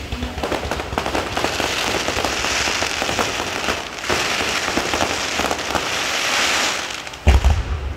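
Fireworks crackling: a dense, rapid rattle of many small pops going on for several seconds, then a deep boom about seven seconds in.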